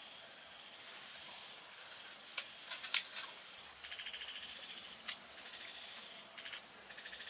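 Close-miked eating sounds: chewing grilled pork off a skewer, with a few sharp mouth clicks and smacks around the middle and one more about five seconds in. Under them is a faint, fast, even ticking.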